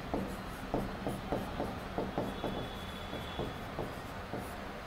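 Chalk writing on a chalkboard: a run of short, irregular taps and scratches as the chalk strikes and drags across the board in handwriting strokes.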